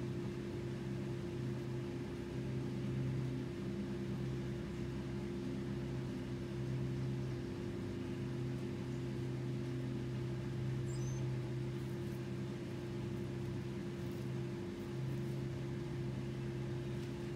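Steady low machine hum made of several held tones, with a faint short high chirp about eleven seconds in.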